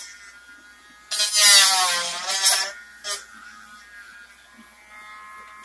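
A small electric motor whirring in short bursts: a long one of about a second and a half, then a brief blip. Its pitch dips and recovers during the long burst, as if under load.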